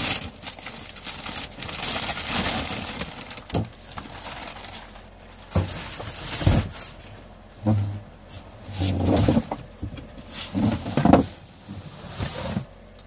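Rustling and handling of a plastic bag, then several short, low growl-like grumbles, each loud and brief.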